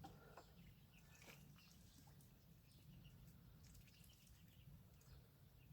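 Near silence: faint scattered short chirps from backyard poultry feeding, over a faint low rumble.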